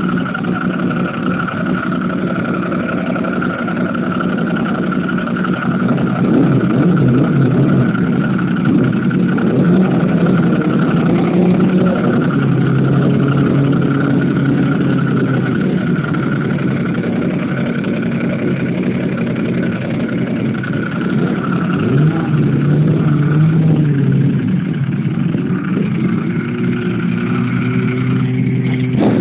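Two motorcycles idling together: a Ducati 998S V-twin and a Suzuki GSX250SS Katana inline-four, with the engine pitch rising and falling a few times as the throttles are blipped. Near the end the Katana pulls away.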